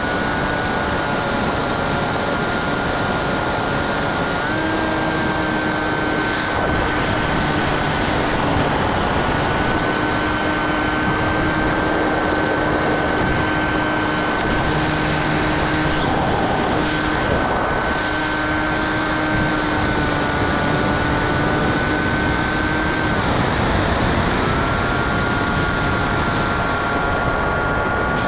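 Bixler 2 model plane's brushless electric motor and 9x6 propeller, recorded from on board in flight: a steady high whine over wind rush. The pitch steps up slightly about four seconds in, then dips briefly about five seconds before the end and comes back up.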